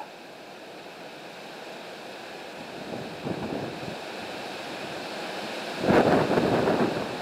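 Rustling and flapping as a rooster is worked head-down into a plastic killing cone, loudest in a burst about six seconds in, over a steady rushing noise.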